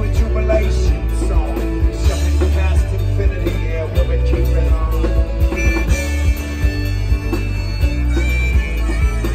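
Live folk-rock band playing an instrumental passage between sung lines: strummed acoustic guitar over a bass line.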